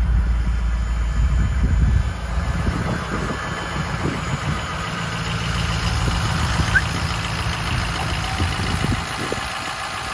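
Ford F-350 Super Duty dump truck's engine idling while its dump bed is tipped up on the hoist. A steady low hum gives way about two seconds in to a busier whirring with scattered knocks, which eases off near the end.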